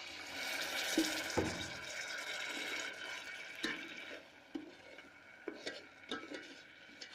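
Water poured into the hot semolina, butter and sugar in an electric kettle, hissing at once and fading after about three seconds, while a spoon stirring the mixture knocks against the kettle now and then.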